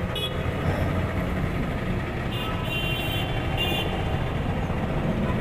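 Steady low engine rumble of vehicle traffic, with a few short high-pitched toots near the start and in the middle.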